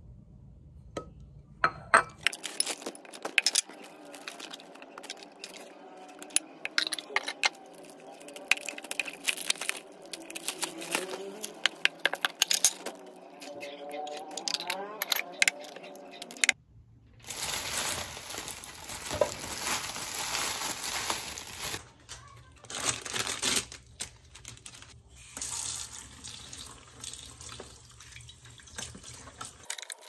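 Plastic packaging crinkling and lids clicking as glass food containers are unwrapped and handled. About halfway through this gives way to a kitchen tap running into a steel sink while plastic lids are rinsed, with knocks and clatter.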